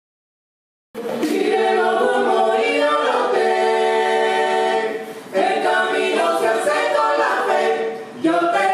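Silent for about the first second, then an a cappella vocal group singing in harmony as soundtrack music, in sustained phrases with two short breaks.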